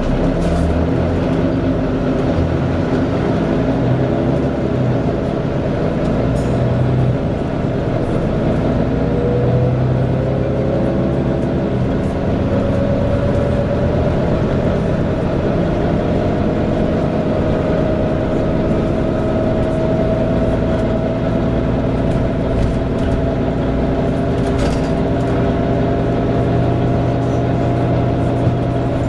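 Volvo B9TL bus heard from inside the cabin while running, its engine drone joined by a slight cooling-fan whine, the 'hoover' sound. The whine rises slowly in pitch about a third of the way in, then holds steady.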